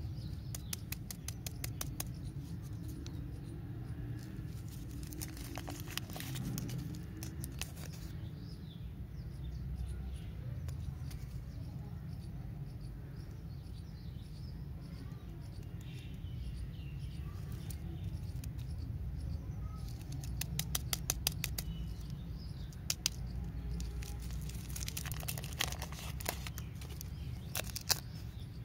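Lollipop wrappers crinkling and rustling between fingers as they are peeled open, in several bursts of quick crackles, over a steady low hum.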